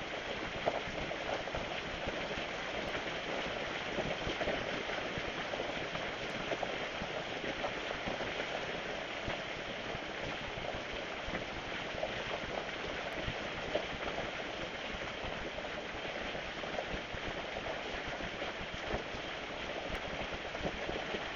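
Steady rain falling, a constant patter of many small drops hitting surfaces.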